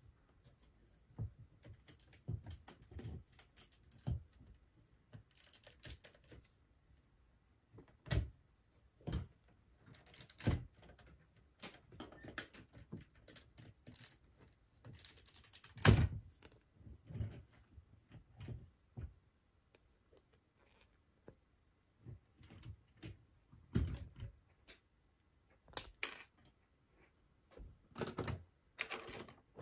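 LEGO plastic bricks being handled and pressed together: irregular small clicks and knocks, with a short rustle about 15 seconds in and the loudest knock just after it.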